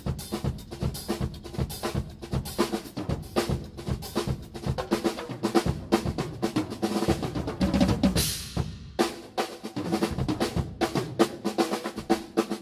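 Large acoustic drum kit played in a fast, busy pattern of snare, tom and bass drum strokes, with a Zildjian cymbal crash ringing out about eight seconds in.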